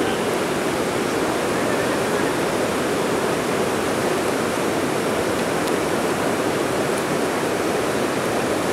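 Whitewater river rapids rushing, a steady even wash of water noise that holds at one level throughout.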